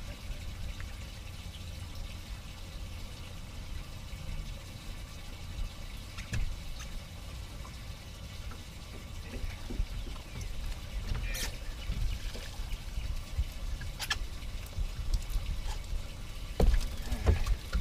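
Wet cast-net line being hauled in hand over hand, water trickling and dripping off the rope and net. A few knocks follow, the loudest near the end as the weighted net full of menhaden (pogies) comes up over the bow.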